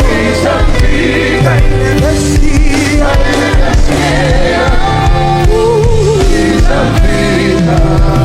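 Live gospel worship music: a band with drums and bass playing under singing voices and a choir.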